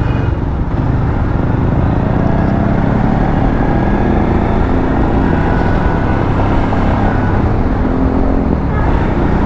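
Motorcycle being ridden along the road: a steady engine note under continuous road noise.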